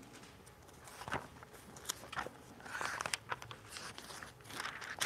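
Faint rustling of paper pages being handled and turned, with scattered light clicks.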